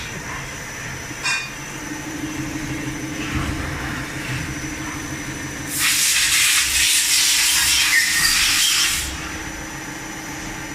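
Takamaz EX 15 CNC lathe's main spindle running with a steady hum that comes in about two seconds in, over a faint high whine. From about six seconds in a loud hiss sounds for about three seconds, then stops.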